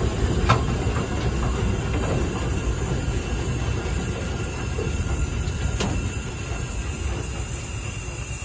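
Steam road locomotive (traction engine) under way, heard from its cab: a steady rumbling clatter of the engine and running gear, with a sharp click about half a second in and another near six seconds in.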